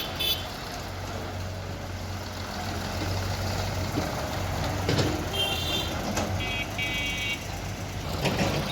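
Heavy diesel engine running steadily, with a clank about five seconds in, followed by a reversing alarm beeping in short repeated pulses for about two seconds.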